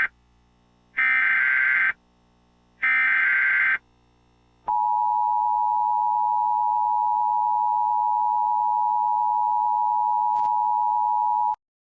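Emergency Alert System header: harsh buzzing data bursts, each about a second long with a second's gap, three in all with the first ending as the sound begins. About five seconds in, the steady two-tone EAS attention signal starts and holds for about seven seconds, then cuts off.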